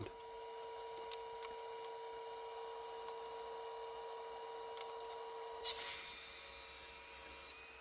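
Power-tool motor running at a steady pitch, heard faintly, with a few light ticks and a short rush of noise about six seconds in.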